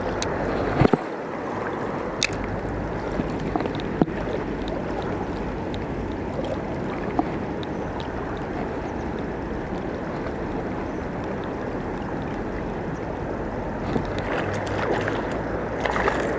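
Steady rushing of flowing river water, with a few sharp clicks.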